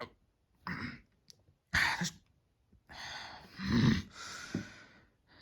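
A voice making several short, breathy non-word sounds: breaths and sighs. The longest and loudest comes about three to four seconds in.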